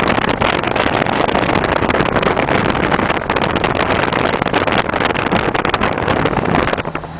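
Wind rushing and buffeting over the microphone, held out the open window of a moving 1973 GMC pickup, over the truck's 307 V8 and road noise. The rush drops away sharply just before the end, leaving the steady engine.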